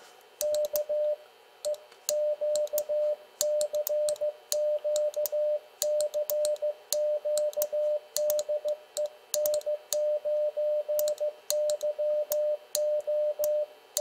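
Morse code sent at 15 words per minute on a brass paddle key, heard as the transceiver's CW sidetone: a single mid-pitched beep switched on and off in dots and dashes, with light clicks from the paddle's contacts. The sending starts about half a second in and runs on in an even, unhurried rhythm.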